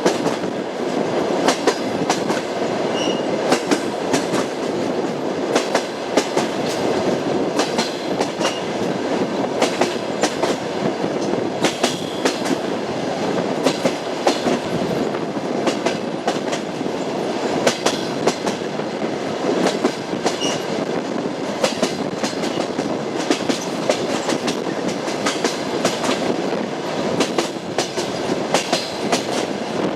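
Train wheels clacking over rail joints as the train runs steadily, over a continuous rumble of the moving carriage, with a few faint short squeaks.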